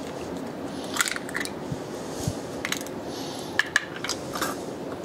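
An egg being cracked open over a stainless steel mixing bowl: scattered light clicks and clinks of shell and fingers against the metal bowl, about half a dozen in all.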